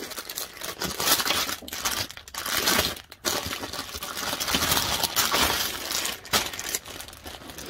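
Crinkling and rustling of packaging and fabric as a garment is rummaged out of a clothing box and unwrapped, in irregular scratchy bursts.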